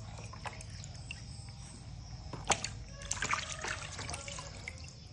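Hands splashing and scooping water in a plastic tub while bathing two baby monkeys, with trickling water throughout. A single sharp splash about halfway through, then a quick cluster of splashes.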